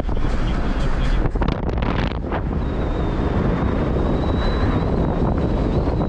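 Road and wind noise inside a moving car's cabin, a steady rush with a few knocks in the first two seconds. From about two and a half seconds in, a thin, high, steady whine runs under it.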